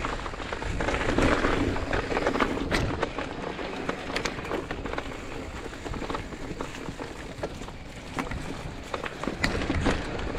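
Mountain bike ride on a dirt trail: tyres crunching over the ground with irregular clicks and rattles from the bike, and wind rumbling on the microphone.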